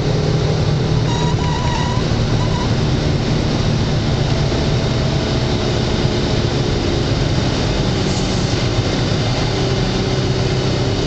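Dodge Charger's 3.5 L V6 engine and tyres heard from inside the cabin while cruising at a steady speed: an even, low hum of engine and road noise.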